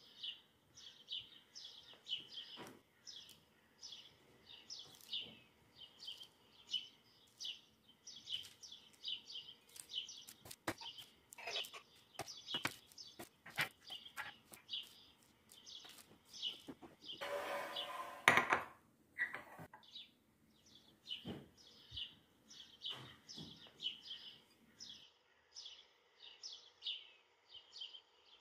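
A small bird chirping over and over, short falling chirps about two or three a second, with scattered clicks and a brief louder rustling noise about two-thirds of the way through.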